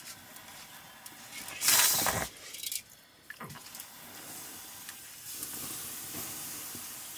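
Liquid dripping and trickling from a tilted metal bowl into an aluminium pot over a wood fire, with a loud hiss about two seconds in and a steadier hiss near the end.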